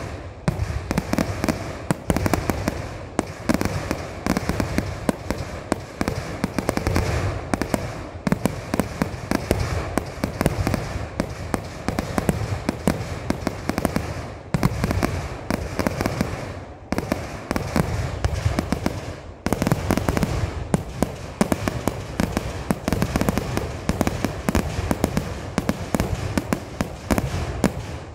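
Vedikettu, the fireworks barrage of a Kerala temple festival: an unbroken volley of firecracker explosions, several bangs a second, overlapping into a continuous crackling roar with only a few brief lulls.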